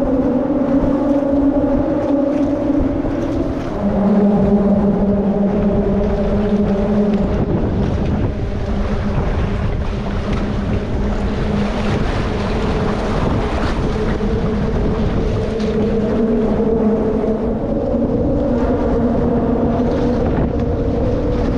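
A kayak's small motor running with a steady hum that drops in pitch about four seconds in, over water rushing along the hull and wind buffeting the microphone.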